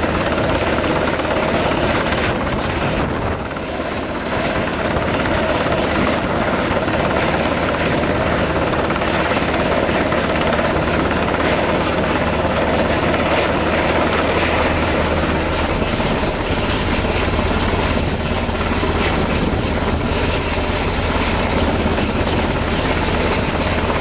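Sikorsky HH-60 Jayhawk helicopter flying close by, its main rotor and twin turbine engines running loud and steady, with a brief dip in loudness about three seconds in.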